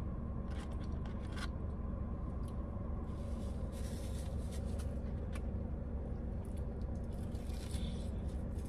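Fried chicken being handled and bitten: light crackles and scrapes of the crust, with a crunchier patch about four seconds in and a bite near the end. Under it a steady low hum of the car's cabin.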